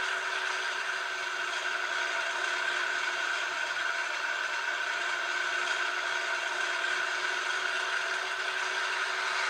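Piko N-scale BR 221 diesel locomotive model's sound decoder playing its diesel engine sound through the tiny onboard speaker, running steadily at full throttle with the brake applied so the loco stands still. The sound is thin, with no bass.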